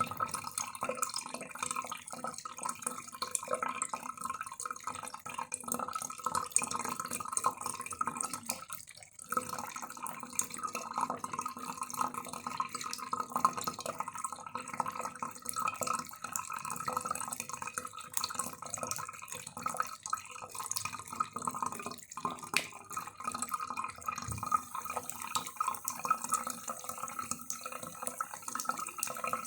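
Cat lapping water in quick, irregular small laps against a steady sound of running water, with a brief pause about nine seconds in.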